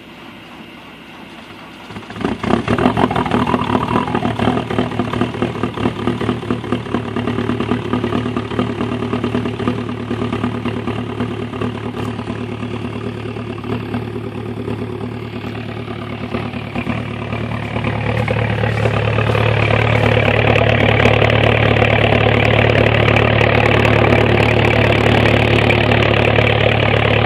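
Volkswagen 1.9 TDI four-cylinder turbodiesel starting from cold in extreme cold. It catches about two seconds in and runs with a dense, rapid clatter. It grows louder over the last several seconds, when it is heard right at the tailpipe.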